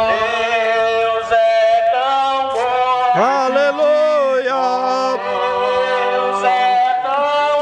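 A man singing praise in long held notes, his voice sliding up and down in pitch between them.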